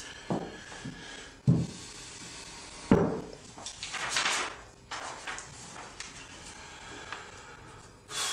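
Sheets of paper rustling as a handwritten letter is handled and passed across a desk, loudest about four seconds in. Before that, three dull thumps on the desktop.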